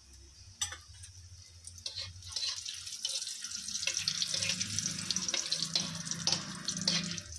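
Gulab jamun dough balls sizzling as they fry in hot ghee in a kadai, the sizzle growing louder about two seconds in. A metal spoon clinks and scrapes against the pan in the second half as the balls are turned.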